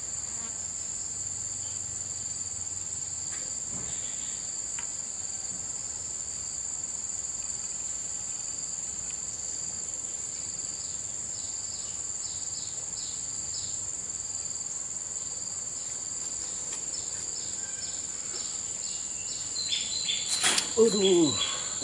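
Steady, high-pitched chorus of insects, with short chirps laid over it now and then.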